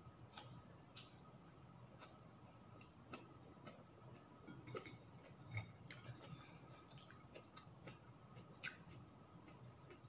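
Near silence with faint, irregular small clicks and mouth sounds of someone eating with their hands: chewing a mouthful of blanched greens and fingers working rice on a plate.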